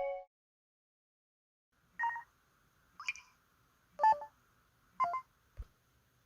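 LG Cyon SH210 mobile phone's built-in electronic beep effects: four short tones about a second apart, each pitched differently, followed by a brief low thud.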